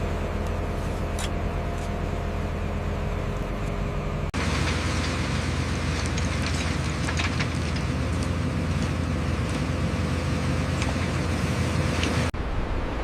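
Heavy road-construction machinery running steadily, its engine a low drone with a steady hum. The sound changes abruptly twice, about four seconds in and near the end, as one clip cuts to the next.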